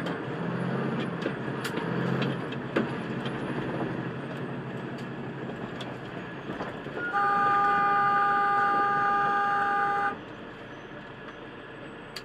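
Truck engine idling in the cab, then a vehicle horn sounds one long steady blast of about three seconds, starting about seven seconds in.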